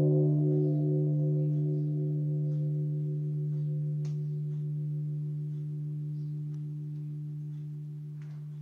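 A 48 cm Blau hammered gong ringing on after a single felt-mallet stroke: a strong low steady hum with higher overtones that waver and pulse, slowly fading.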